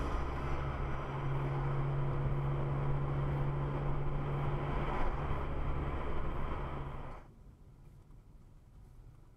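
Car driving noise: steady road rumble and engine drone, cutting off suddenly about seven seconds in and leaving only a faint low hum.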